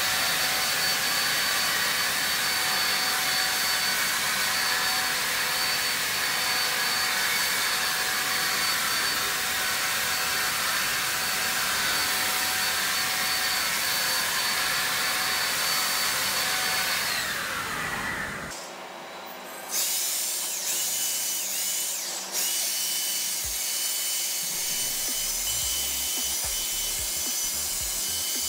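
Janvitha 550-watt handheld electric paint sprayer's motor running with a steady high whine while spraying paint. About 17 seconds in it winds down and stops, then starts again a couple of seconds later and runs on at a lower pitch, with a brief dip soon after.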